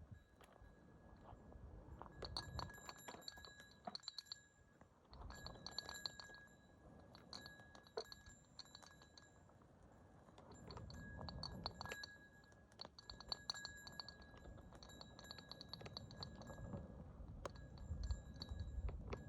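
Short runs of rapid metallic clicking with a faint high ringing, repeating every second or two.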